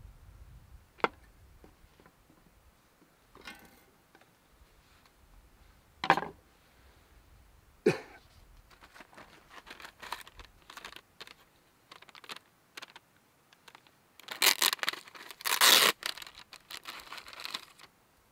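Wrapping or packaging being torn open and crinkled, loudest near the end, after three sharp knocks earlier on.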